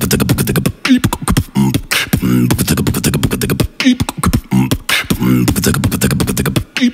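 A man beatboxing into a microphone: sharp drum-like clicks and snares over a hummed bass line, the phrase repeating about every three seconds.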